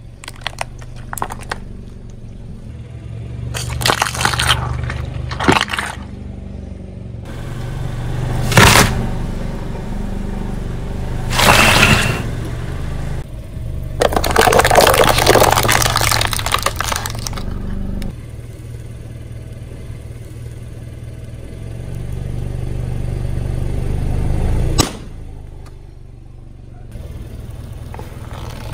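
A car tyre rolling slowly over plastic toys and plastic cups, crushing them with a run of sharp cracks and longer crunching stretches, over the steady low hum of the car's engine. The longest, loudest crunching comes about halfway through, and there is one sharp snap near the end.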